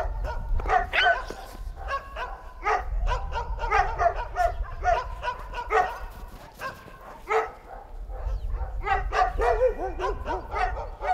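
Several mixed-breed dogs barking, many short barks overlapping one another.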